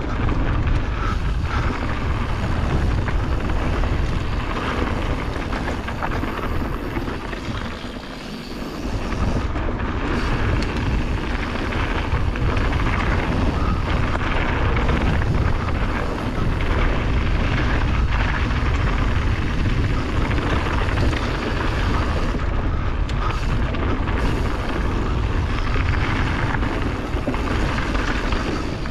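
Wind buffeting the action camera's microphone and a Canyon Torque mountain bike's tyres rolling over a loose gravel trail at speed: a steady rushing rumble, easing briefly about eight seconds in.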